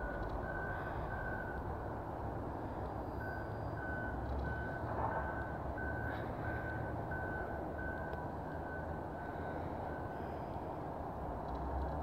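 A reversing vehicle's backup alarm beeping a single high tone about twice a second, over a steady low rumble. It stops after about a second and a half, starts again about three seconds in, and stops about ten seconds in.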